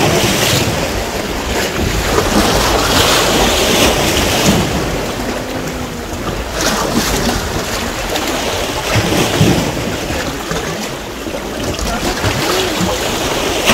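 Sea waves washing against rocks and a concrete jetty, swelling and easing, with wind buffeting the microphone.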